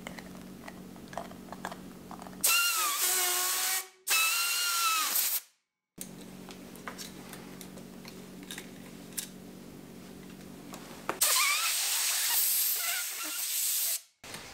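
Compressed-air blow gun hissing in three bursts, with a wavering whistle as the air is forced under a rubber handlebar grip to float it onto the bar.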